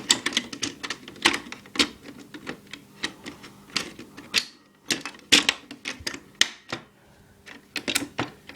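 Hard plastic parts of a Nerf Long-Strike blaster's internals clicking and knocking as they are handled and fitted into the plastic shell, in an irregular run of sharp clicks.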